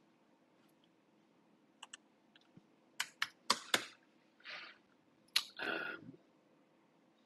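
Computer keyboard keystrokes and clicks while a user works in CAD software: a few faint isolated taps, then a quick run of about five sharp keystrokes near the middle, followed by two short softer rustling sounds.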